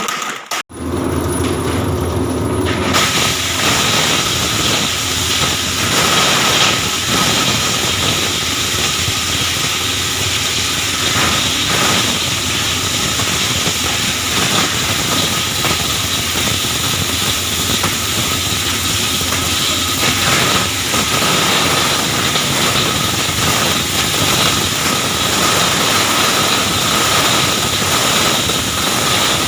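Plastic scrap grinder running loud and steady, its blades crunching waste plastic chair pieces into granules with a dense crackling clatter. Motor hum shows under it at first; the crackling fills out about three seconds in.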